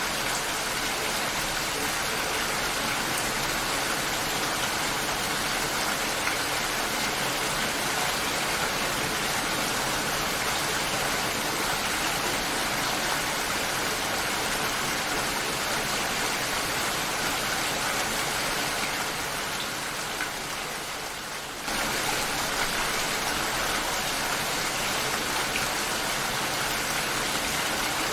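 Steady rain, an even hiss of falling water. About two-thirds of the way through it softens for a couple of seconds, then comes back suddenly.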